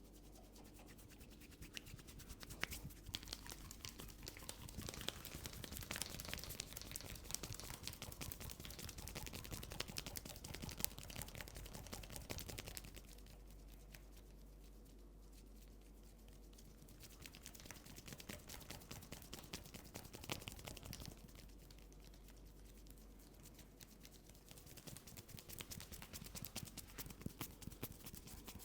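Hands rubbing and scratching through hair and over the scalp during a head massage, a fine scratchy crackle close to the microphone. It comes in three stretches with short pauses between.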